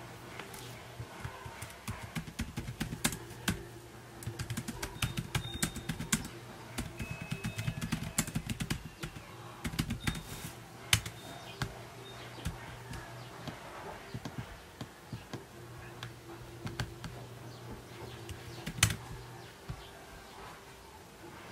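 Typing on a laptop keyboard: quick runs of key clicks in the first half, sparser keystrokes after, with a louder click about halfway and another near the end, over a low steady hum.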